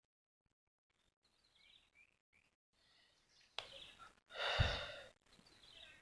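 Faint bird chirps, then a loud breathy exhale like a sigh close to the microphone, about four and a half seconds in.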